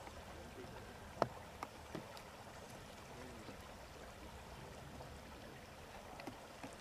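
Faint steady background rumble and hiss, with three sharp clicks between about one and two seconds in and faint distant voices.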